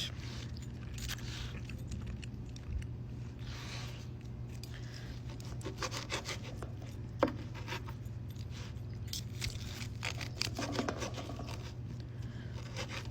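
Quiet eating sounds: cutlery scraping and rubbing against a plate with a few sharp clicks, over a steady low hum.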